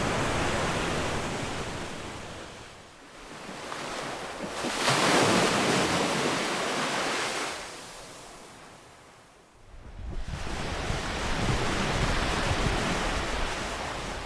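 Ocean surf washing ashore in slow surges: the loudest wave breaks about a third of the way in, then fades into a lull before the wash rises again suddenly about two-thirds through.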